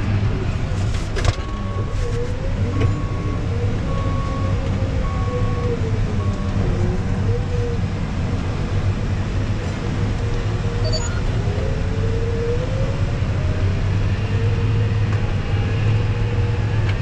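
Case IH 400 tracked tractor's engine running steadily under ploughing load, heard from inside the cab as a deep even drone. Over the first six seconds a short electronic beep sounds about once a second, five or six times.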